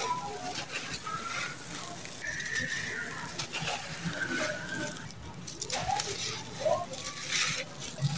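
Dry, gritty sand-and-cement mix with small stones being scooped by hand and let fall, trickling and crunching as it crumbles onto the pile. A few short, high-pitched calls sound in the background.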